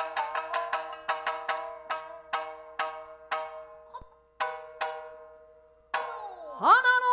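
Shamisen playing the opening of a rōkyoku piece: quick sharp plucked strokes, about four a second, that slow and thin out to single ringing notes. Near the end a singer's voice comes in, sliding up into a held note.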